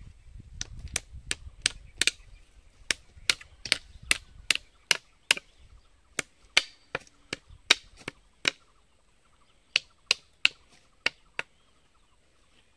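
Sharp, hard knocks, about two or three a second for the first few seconds, then in slower, scattered runs. These are blows of makeshift repair work on a rotted bamboo part, most likely a tool handle.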